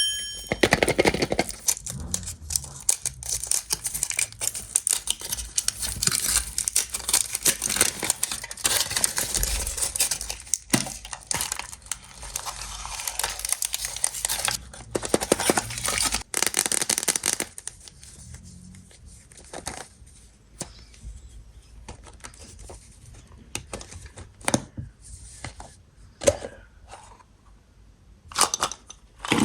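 Foil wrapper of a Kinder Maxi chocolate egg being torn and crinkled by hand, densely for the first two-thirds, then thinning to occasional rustles and light clicks.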